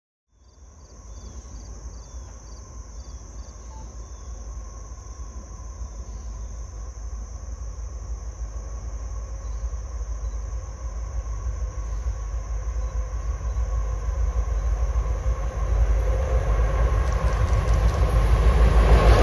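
Diesel locomotives of an approaching Norfolk Southern intermodal train, a low rumble growing steadily louder as the train nears. A steady high insect buzz runs underneath.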